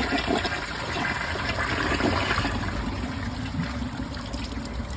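Mansfield Summit dual flush toilet flushing: water rushes loudly for about two and a half seconds, then dies down to a quieter, steady run of water. The flush does not clear the wristband load, which the owner puts down to a porcelain defect sticking out inside the trapway.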